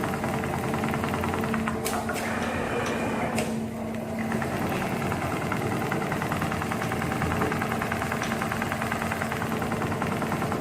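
Industrial frame-type CNC programmable pattern sewing machine stitching at speed, a fast, even needle rhythm. A few sharp clicks come two to three and a half seconds in, and the sound briefly drops about four seconds in.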